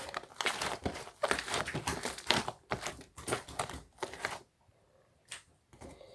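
Slime being squeezed and kneaded by hand, giving irregular crackling, squishing clicks and pops. The clicks stop for about a second near the end, then one more comes.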